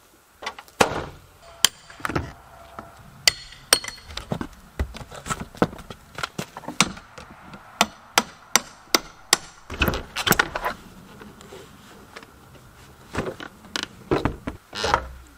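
Hammer blows and prying on a house's wooden wall siding and trim as it is torn off: sharp, irregular knocks, with a quick run of evenly spaced blows, about two a second, some eight seconds in.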